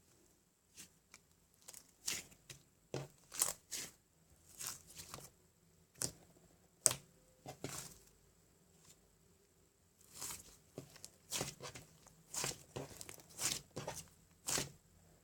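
Irregular short rustling, scraping and clicking sounds of something being handled close by, coming in clusters with short gaps, with one sharper click about seven seconds in.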